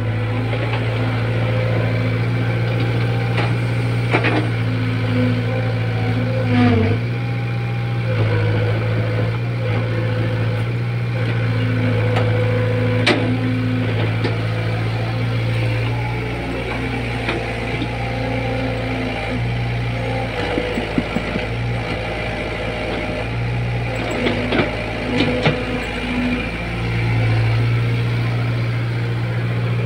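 Caterpillar E70B excavator's diesel engine running steadily, its note dipping and recovering several times as the arm and bucket work the mud, with a few sharp knocks along the way.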